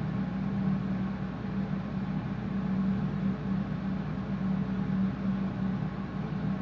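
Steady low mechanical hum, constant in pitch and level.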